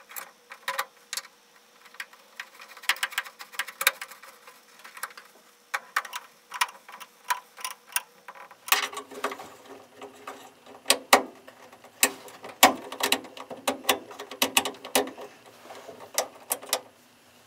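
Irregular small metallic clicks, taps and scrapes of hand work on a headlight switch being fitted under a steel dash, with a screwdriver at its bezel and the knob pushed in. From about nine seconds in, a steady low hum runs beneath the clicks.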